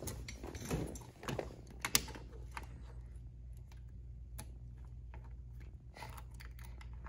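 Light, irregular metallic clicks and rattles of a small padlock, its hasp and a key on a short chain being handled while the key is worked into the lock to unlock it.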